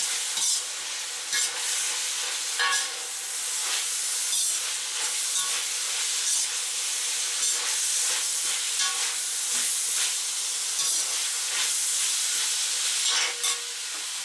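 Pork slices, onion rings and spring onions sizzling in a hot wok as they are stirred and tossed together, the utensil scraping and clacking against the pan every second or so over a steady hiss of frying.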